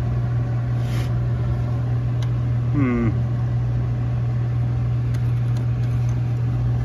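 Steady low motor hum with a noisy mechanical drone over it, no change in pace. A short vocal sound comes about three seconds in.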